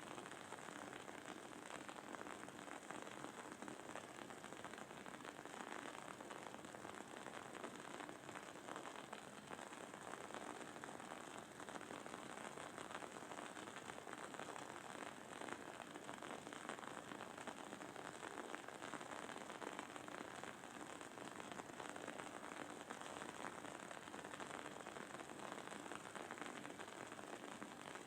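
Wooden wick of a burning candle crackling and sizzling: a quiet, steady stream of fine pops with no single loud crack.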